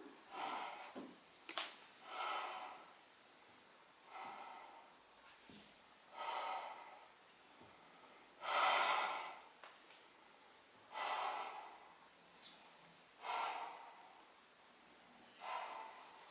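A cat breathing audibly, with about eight loud snuffling breaths coming roughly every two seconds; the breath just before the middle is the loudest.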